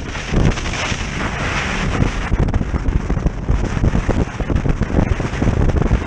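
Strong wind buffeting the microphone of a camera on a jet boat running fast through choppy water, irregular low thumps over a steady rush of wind, water and spray.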